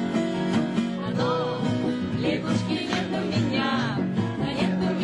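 Music: a song with acoustic guitar accompaniment and a melody line that bends in pitch over a steady bass.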